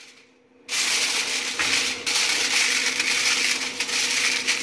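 Aluminium foil crinkling and crackling as it is pressed and crimped by hand around the rim of a bowl, starting after a brief quiet moment just under a second in and going on steadily.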